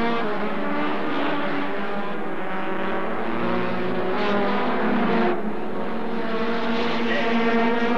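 Several racing sedans' engines running hard together, their pitches rising and falling as the cars accelerate and pass, with a louder rush as cars go by about four and five seconds in.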